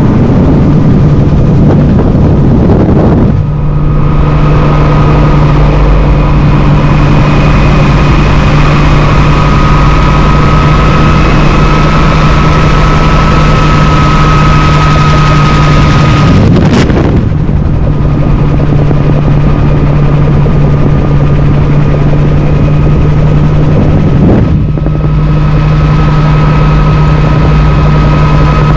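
Bell 47 helicopter in flight, heard from inside its open bubble cockpit: the loud, steady drone of its piston engine and rotor, with a constant higher whine over it. The noise briefly shifts three times.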